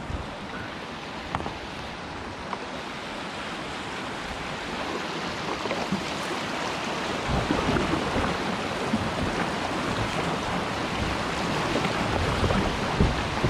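Rushing whitewater in a shallow river chute, growing steadily louder as the kayak runs down into it, with a low rumble joining from about halfway.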